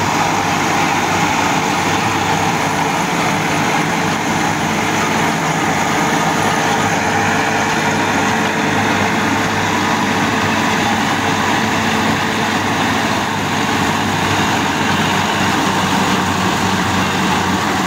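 Massey Ferguson 385 tractor's diesel engine running steadily under load together with the PTO-driven straw chopper it powers, chopping stubble and blowing it into a trailer: one dense, even machine noise with no breaks.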